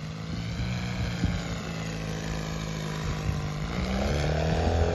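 Valach 170 engine and propeller of a 3.4 m radio-controlled Piper J3 Clipped Wing model in flight: a steady engine drone that rises in pitch and grows louder about three and a half seconds in.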